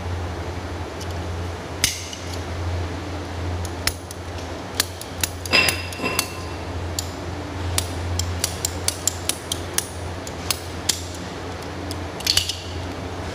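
Small PVC and metal pipe fittings clicking and clinking as they are handled and fitted together, many short sharp clicks with one ringing metallic clink about five and a half seconds in, over a steady low hum.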